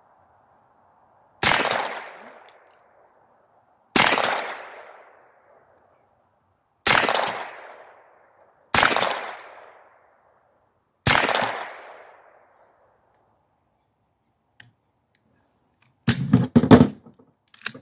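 Five single shots from an AR-15 fitted with a .22 LR conversion bolt, firing Federal Automatch .22 LR, spaced two to three seconds apart, each with a short echo trailing off. Near the end comes a brief, louder clatter of handling noise.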